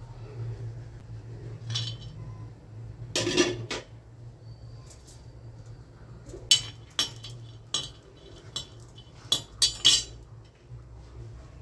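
Steel spoon clinking and scraping on an iron tawa while dry coconut slices are roasted. A clatter about three seconds in as the pieces land on the pan, then a run of sharp clinks over the last few seconds, over a low steady hum.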